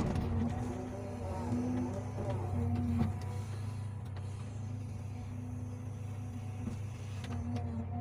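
Hydraulic excavator's diesel engine running steadily under load, with a hydraulic whine that comes and goes as the boom and bucket move, mostly in the first three seconds. A knock as the bucket dumps its soil at the start, and another about three seconds in.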